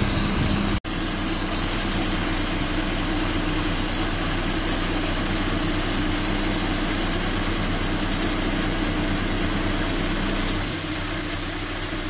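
Mercedes-Benz Actros 3340 dump truck's V6 11.9-litre turbocharged diesel engine running steadily while the hydraulic tipper body rises to dump gravel. It goes a little quieter near the end.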